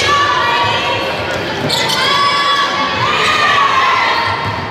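Basketball crowd in a gym shouting and cheering, many voices at once, with a basketball bouncing on the hardwood court underneath.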